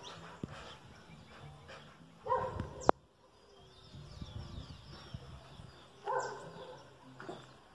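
A dog barks twice, about four seconds apart, each a short burst. Birds chirp faintly between the barks, and there is a single sharp click just after the first bark.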